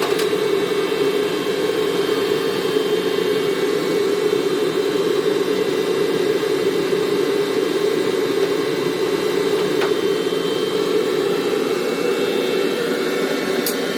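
A motor-driven shop tool or machine running steadily: a loud, even whir with a high whine and no change in load.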